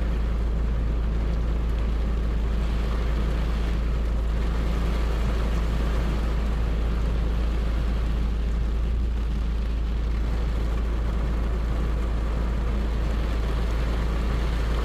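Steady rain falling: a continuous even hiss with a strong deep rumble underneath.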